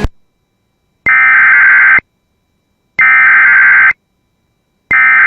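Emergency Alert System SAME header: three identical buzzy data bursts, each about a second long and a second apart, the first coming about a second in. These are the digital tones that encode a special marine warning for broadcast.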